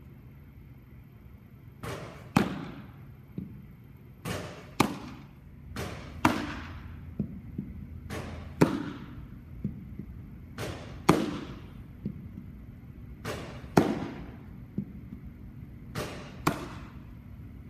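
Baseballs popping into a catcher's mitt, seven catches about two and a half seconds apart, each followed by a short echo. Each pop comes about half a second after a fainter snap.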